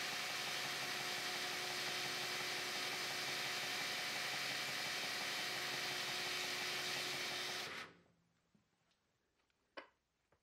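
Belt grinder running steadily, a motor hum with a faint whine over the belt's noise. It cuts off abruptly near the end, followed by a single faint click.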